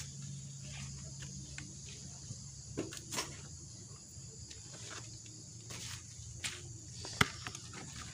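Faint outdoor ambience: insects chirring in a steady high drone, with a few scattered light clicks and taps.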